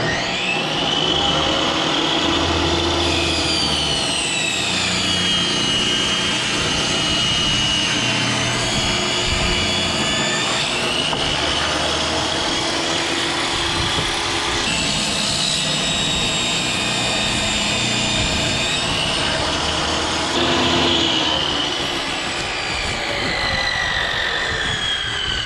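Portable jobsite table saw running and cutting pine boards, its motor whine dropping in pitch each time a board is fed into the blade and climbing back between cuts.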